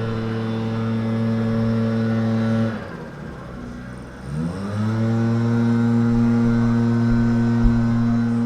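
Lawnmower engine running at a steady speed. About three seconds in it winds down sharply, then revs back up to the same steady speed about a second and a half later.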